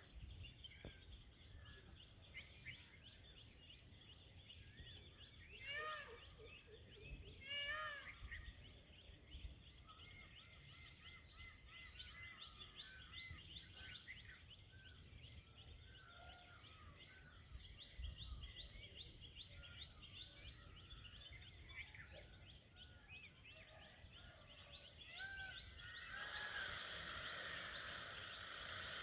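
Jungle birdsong: many small birds chirping over a steady, pulsing insect buzz high up, with two louder calls about six and eight seconds in. A rushing noise rises near the end.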